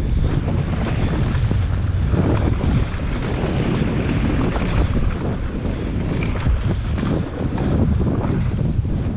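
Wind buffeting an action camera's microphone over the steady rumble and irregular rattle of a downhill mountain bike rolling fast over a dirt trail.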